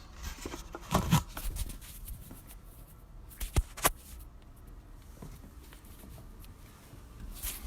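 Handling noise of a recording device being fumbled with to stop it: rustling and scattered taps, with two sharp clicks close together about three and a half seconds in.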